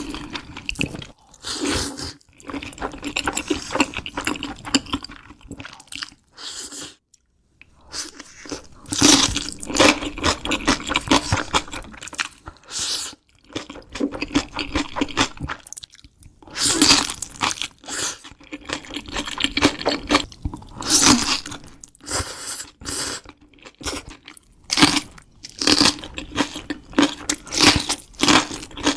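Close-miked eating: crunchy bites of crisp food and steady chewing, in bouts broken by a few short pauses.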